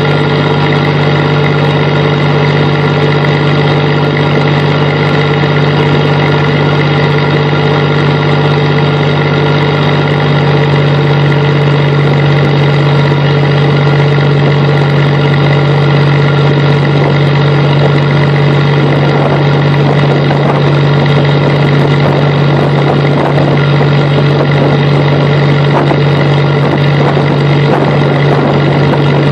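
Fishing boat's engine running steadily under way, a loud, even drone with the rush of water along the hull.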